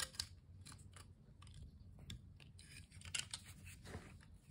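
Faint, scattered metallic clicks from a pair of steel groove joint pliers being handled and worked, a few sharper ones about three seconds in.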